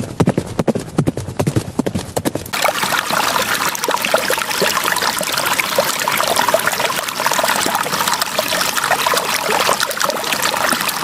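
Rapid clip-clop-like knocks for about two and a half seconds, then a steady, crackly trickling and pouring sound.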